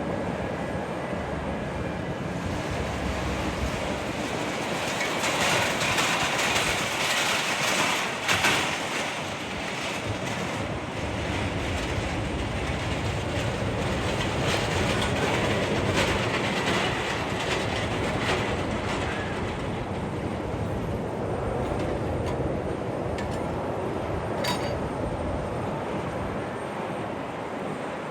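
Steady rumble and hiss of jet aircraft and ground equipment on the apron during a Boeing 737-800 pushback. It swells about five seconds in, with a brief louder burst around eight seconds in.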